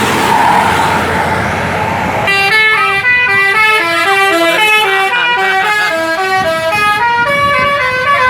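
Bus 'telolet' musical horn playing a quick melody of short notes that step up and down in pitch, starting about two seconds in. Before it comes a loud rushing noise.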